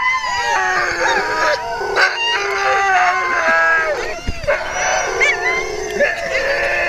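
A team of Alaskan husky sled dogs in harness howling and yelping together, many overlapping cries rising and falling in pitch.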